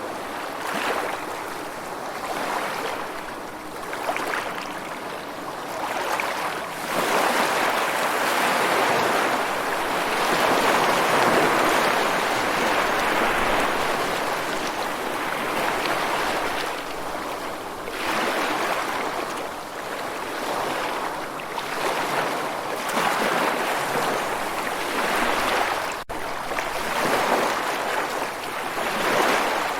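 Ocean surf: waves washing in and drawing back in slow swells of rushing water, with no music over it. A split-second dropout near the end.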